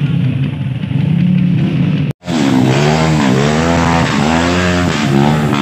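Dirt bike engine running steadily, broken by a brief drop to silence about two seconds in; then a dirt bike's engine revving up and down repeatedly as it climbs a steep muddy slope.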